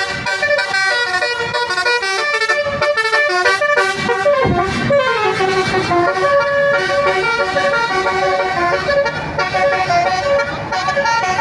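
A bus's Basuri telolet horn, a multi-tone musical horn, playing a tune in short held notes, loud throughout, with one falling glide about four and a half seconds in.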